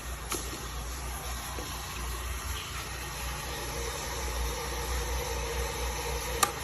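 Electric kettle heating water, a steady rushing hiss over a low hum, with a sharp click near the end.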